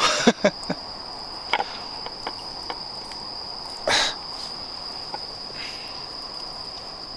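Insects singing in the night grass as one steady, high-pitched trill, with a few short soft clicks and one louder short noise about four seconds in.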